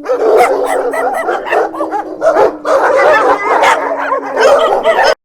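Several dogs barking and yipping over one another, with one long, slowly falling howl held underneath. It cuts off suddenly about five seconds in.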